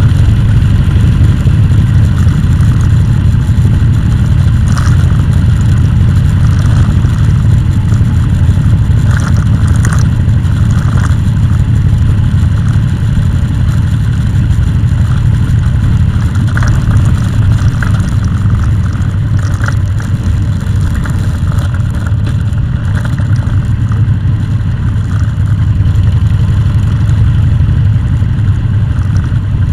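A vehicle engine running steadily on the move, a constant loud low rumble with a few brief faint higher sounds over it.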